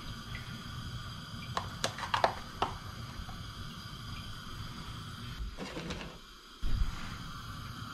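Kitchen handling sounds over a steady low hiss: a few light clicks and taps early in, then a short, louder clatter about two-thirds of the way through as a utensil is pulled from a metal utensil holder.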